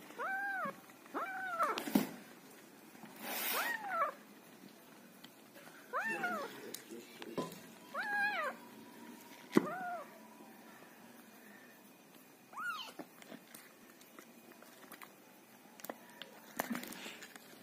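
A hungry tabby kitten meowing while it is bottle-fed: about seven short meows, each rising then falling in pitch, spread over the first dozen seconds, with a couple of sharp clicks among them. The rest is quieter.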